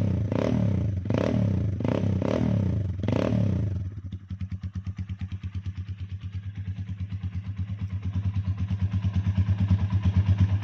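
Sigma 250 motorcycle engine, fitted with a modified intake manifold, blipped in about four quick revs. It then settles to a steady, evenly pulsing idle.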